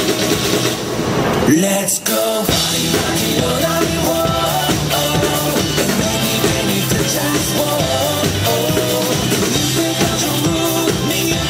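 Yamaha drum kit played live along to a loud rock backing track. There is a short break about two seconds in, then the band and drums come back in full.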